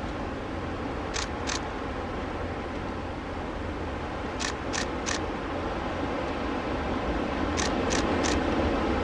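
Camera shutter clicks in quick groups: two, then three, then three more, over a steady low rumble.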